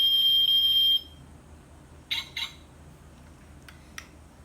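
A toy car's electronic sound chip plays a steady, high-pitched alarm-like tone that cuts off suddenly about a second in. Two brief chirps follow about two seconds in, then a couple of faint clicks.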